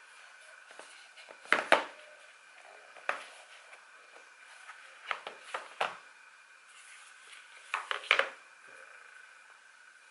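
A Samsung Galaxy S23's cardboard retail box being opened by hand: short sharp knocks and scrapes in small clusters as the lid comes off and the phone is handled in its tray. The loudest come about a second and a half in and about eight seconds in, over a faint steady high hum.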